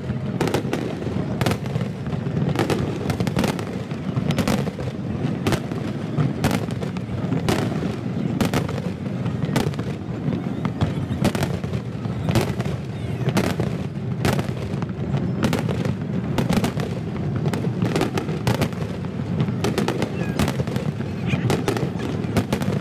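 Aerial fireworks display: shell bursts bang in quick succession, several a second, over a continuous low rumble.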